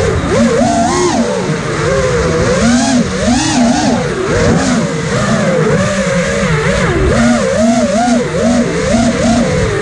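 FPV racing quadcopter's electric motors whining, the pitch swinging up and down again and again as the throttle changes, over a rush of wind noise.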